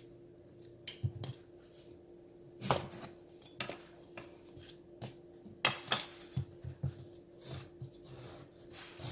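Large kitchen knife cutting raw breadfruit on a wooden cutting board: irregular knocks and scrapes of the blade through the fruit and against the board. A faint steady hum runs underneath.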